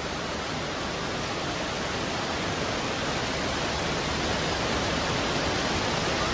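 Heavy rain pouring down steadily: a dense, even hiss that grows a little louder toward the end.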